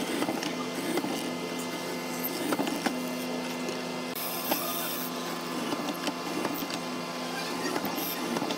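Hollow-chisel mortiser running with a steady motor hum while its square chisel and auger are plunged repeatedly into a wooden frame piece, with uneven rasping and crunching bursts as the bit chews out the wood.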